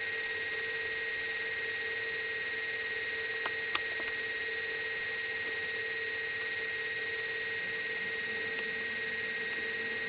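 Homemade desktop vertical milling machine running, a steady high whine of several even tones with a lower hum beneath, and one sharp click about four seconds in.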